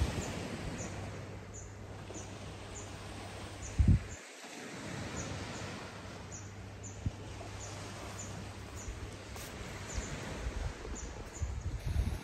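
Outdoor ambience: a short, high chirp repeating about every half second, from a bird or insect, over a low rumble, with one bump about four seconds in.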